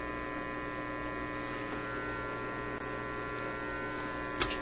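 A Newcomb tube amplifier, turned up high with no signal, hums steadily over a hiss; the owner thinks a tube is a likely cause of the hum. A sharp click comes near the end.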